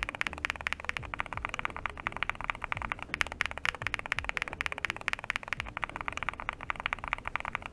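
Rapid, continuous typing on a mechanical keyboard fitted with Akko Botany long-pole switches, in an aluminum-plate, fully foamed case: a dense run of crisp key clacks that stops abruptly at the end.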